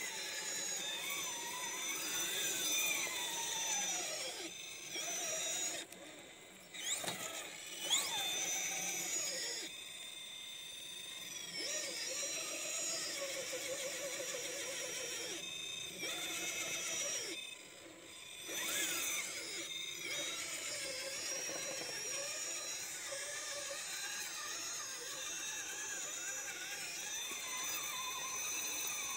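RC rock crawler's electric motor and gear drivetrain whining at a high pitch as it crawls up rock. It cuts out and starts again several times as the throttle is let off and reapplied, with the pitch sliding up and down as the motor speeds up and slows.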